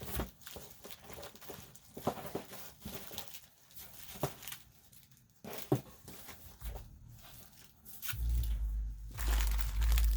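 Rustling and crinkling of packaging as ribbons and craft supplies are handled and sorted, with scattered soft knocks. A low rumble of handling noise comes in near the end.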